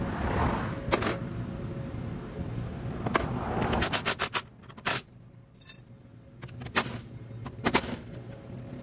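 Metal clinks, knocks and a scrape as tools and bolts are handled at a pickup's rear bumper during its removal. There are about half a dozen sharp knocks spread out, with a quick run of clicks just before the middle.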